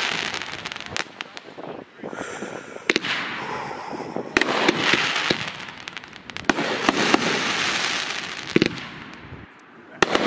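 Consumer aerial fireworks going off: several sharp bangs of shells bursting a second or two apart, with a noisy crackle of sparking stars between them.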